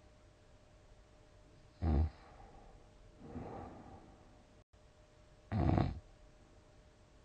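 A person snoring in deep sleep: two short, loud snores about three and a half seconds apart, with a softer breath between them.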